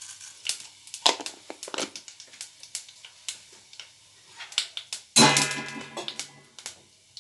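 Fennel seeds crackling in hot oil in a granite-coated kadai, with irregular sharp pops. About five seconds in, a sudden loud ringing pitched tone fades out over about a second.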